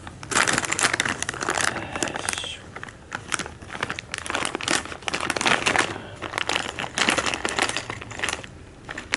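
Clear plastic parts bag crinkling and rustling as it is picked up and handled, in irregular bursts with short pauses.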